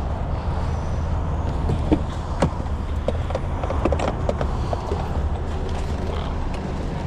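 Pickup truck driving, heard from inside the cab: a steady low road-and-engine rumble, with scattered light clicks and creaks from the cab.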